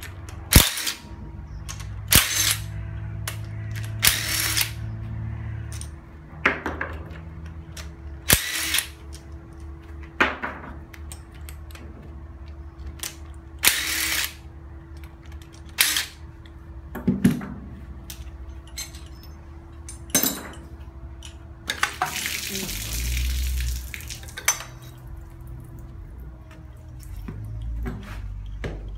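Cordless impact wrench undoing bolts on the front of a new Hyundai Accent 1.5 16-valve engine, in about a dozen short bursts every second or two, with a longer run about 22 seconds in.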